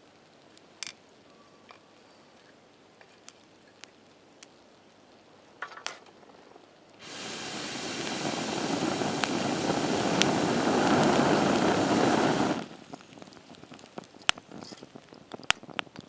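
Campfire crackling with a few scattered pops; about halfway through, a loud sizzling rush starts abruptly, builds for about five seconds and cuts off suddenly.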